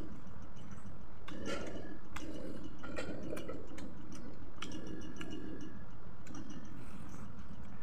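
A person chewing fried chicken close to the microphone: wet chewing and squishing broken by irregular sharp mouth clicks.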